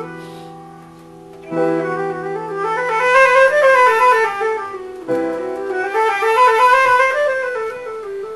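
Flute and piano playing live together: the piano strikes sustained low chords twice, while the flute plays quick runs of notes that rise and then fall.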